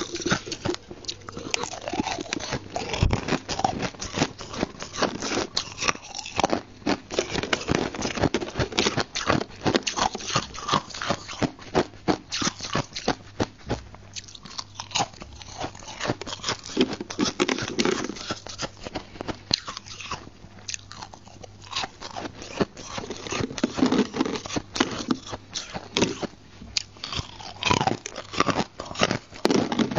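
Close-miked biting and chewing of chunks of white ice: a dense, continuous run of crisp crunches and crackles as the ice is bitten off and ground between the teeth.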